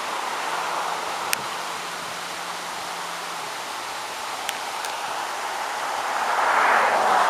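Steady rush of a waterfall and the creek cascading over rocks below it, swelling louder near the end. A sharp click sounds about a second in and a fainter one past the middle.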